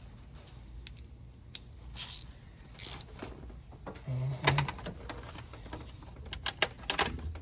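Metal hand-tool clicks and clinks from a socket ratchet with an 8 mm socket being fitted and worked on a radiator fan mounting bolt. The clicks come short and irregular, clustering about four seconds in and again near the end.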